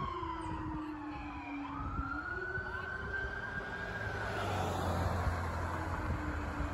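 Police cruiser sirens wailing in a slow fall and rise, fading out a little after four seconds in as the convoy moves off. A car's engine and tyres rumble past near the end.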